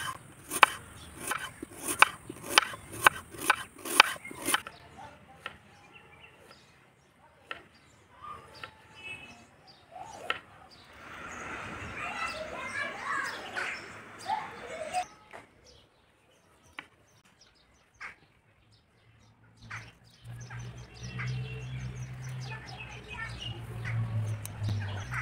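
A knife striking a wooden chopping board about twice a second for the first four seconds, then birds chirping; a low hum comes in near the end.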